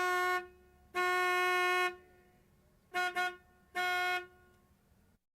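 A single-tone car horn honking in a pattern: a short honk, a longer one, two quick toots, then one more short honk.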